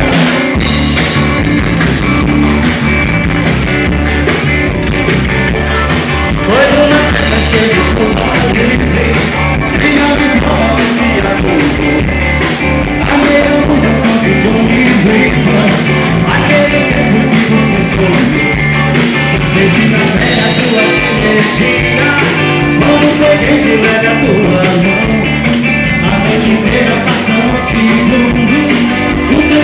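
A live rock band playing loud through stage speakers: drums and electric guitars, with a steady beat.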